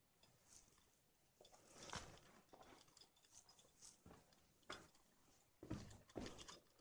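Faint, irregular footsteps crunching on loose stone rubble and gravel, louder near the end.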